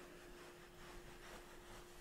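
Faint soft rubbing and rustling of a fluffy towel worked over hair in towel-drying, with a thin steady hum underneath.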